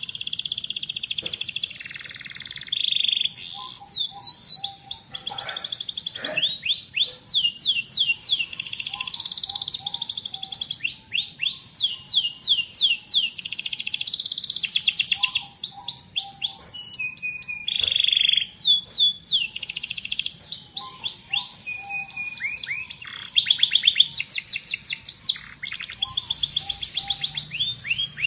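Domestic canary singing a long, nearly unbroken song of rapid trills and rolls, strings of quickly repeated notes with sweeping phrases between them.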